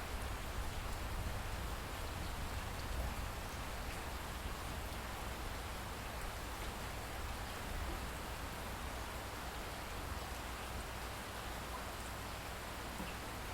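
Light rain falling steadily, an even hiss with a low rumble underneath.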